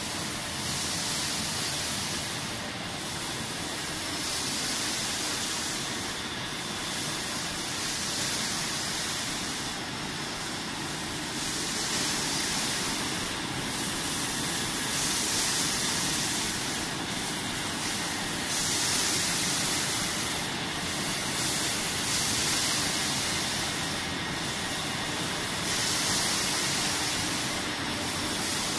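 Sidel SBO 10 rotary stretch blow-moulding machine running at production speed: a loud, steady hiss of compressed air over mechanical running noise, swelling and easing every few seconds.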